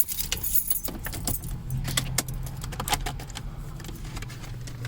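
Car keys jangling and clicking as they are handled and put into the ignition, most of the jingling in the first few seconds, over a steady low hum.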